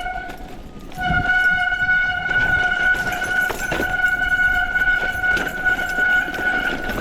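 Mountain bike brake squealing in one steady high tone while the rider brakes on the descent, let off briefly about half a second in and back on from a second in, over wind and trail rumble.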